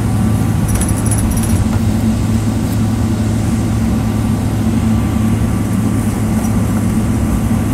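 Boeing 777-300ER cabin noise from over the wing: the GE90 engines' steady drone and rumble. A brief high jingle comes about a second in.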